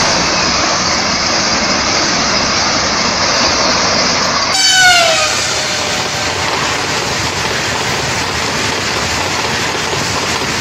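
Train 18 electric trainset passing at high speed: a steady rushing of wheels on rail and air. About halfway through comes a brief horn note that drops in pitch as the train goes by.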